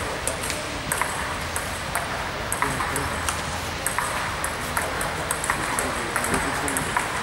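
Table tennis rally: a celluloid-type ball clicking off the paddles and bouncing on the table, sharp clicks about two or three a second over steady hall noise.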